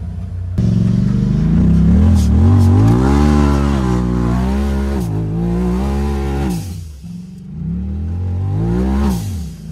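Side-by-side UTV engine revving hard under load off-road, its pitch climbing and holding high. The throttle is lifted about seven seconds in, then it revs up again and falls away near the end.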